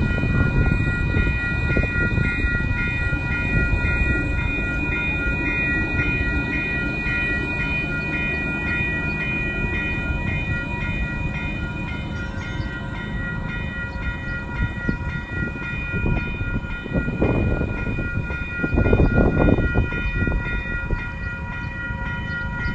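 Level-crossing warning bell ringing in a quick, even, repeating pattern throughout, over the low rumble of an ION light rail vehicle (Bombardier Flexity Freedom) rolling past on the tracks. Two louder low rumbles come near the end.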